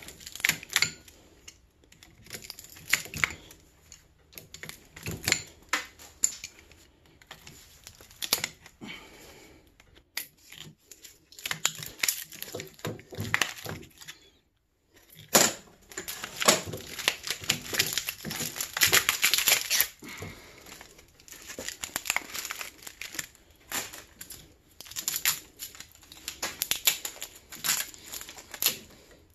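Insulating tape being ripped and peeled off a small transformer's copper windings: a crinkling, tearing sound in irregular bursts. Sharp clicks come in among the tearing as cutters snip at the tape and lead wires.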